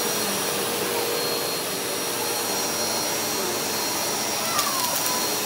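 Bagless upright vacuum cleaner running steadily on carpet: a constant rush of air with a steady whine from the motor.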